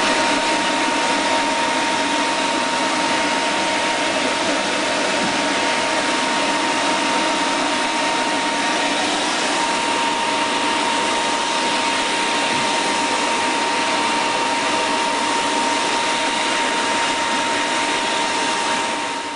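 Electric shop fan running: a steady rush of air with one constant tone through it.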